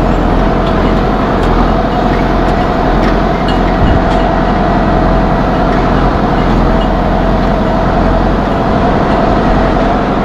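Tractor engine running steadily, with scattered light rattles and knocks over it.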